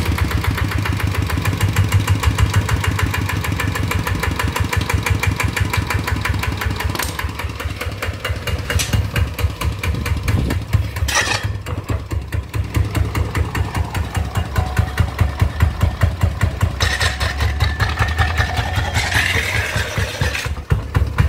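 Kubota E7 single-cylinder diesel engine running steadily with a pulsing beat. A few sharp clacks come about halfway through; the owner puts these down to the wheel rubbing against a stick, not to any engine fault.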